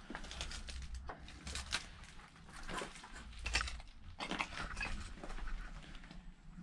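Footsteps crunching and scraping over debris on a derelict house's floor: irregular short crunches and clicks, with a low rumble underneath.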